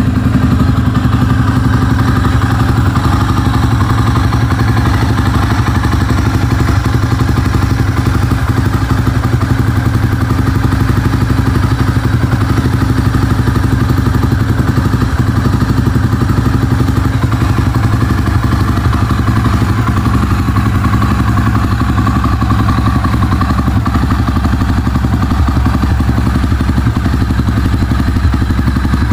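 Honda motorcycle engine idling steadily, a fast even chug of exhaust pulses that holds the same pitch with no revving.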